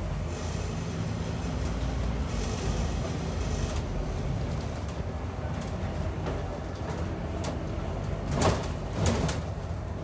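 Scania N230UD Optare Olympus double-decker bus running with a steady low diesel rumble. There is a faint hiss twice in the first few seconds, and two short knocks about half a second apart near the end.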